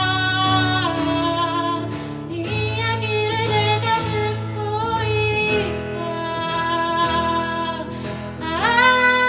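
Live song: a woman singing long held notes that slide from one pitch to the next, over guitar accompaniment with a steady bass line.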